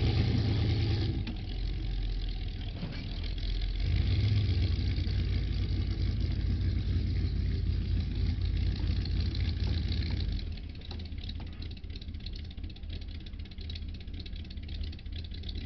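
A vehicle engine running steadily with a low rumble while an old pickup is pulled backward. It is louder for the first ten seconds or so, then drops somewhat.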